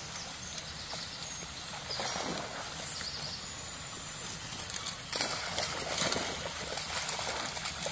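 Two spaniels, an English springer and a cocker spaniel puppy, wading into a river and swimming, their splashing getting busier from about five seconds in.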